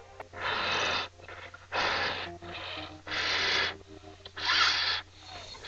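A person blowing hard into a condom to inflate it like a balloon: four long, breathy puffs, each about half a second, roughly a second and a bit apart.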